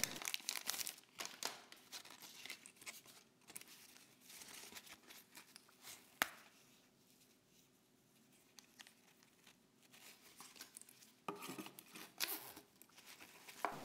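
Clear plastic packaging bag crinkling and tearing as a pen pouch is unwrapped, in faint scattered crackles. It goes quiet in the middle apart from one sharp click about six seconds in, and the crinkling starts again near the end.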